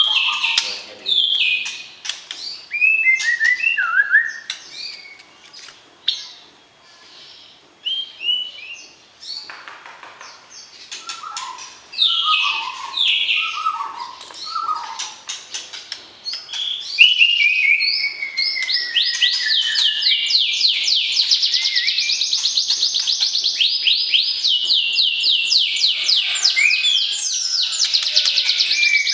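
White-rumped shama (murai batu) singing: varied, separate whistled phrases at first. About halfway through, the song turns into a fast, unbroken run of rapidly repeated rising notes that carries on to the end.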